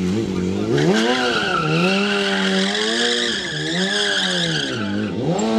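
BMW sport motorcycle's engine revved in repeated rising and falling blips while the rear tire squeals on the asphalt, from about a second in until near the end, as the bike is spun and slid during stunt riding.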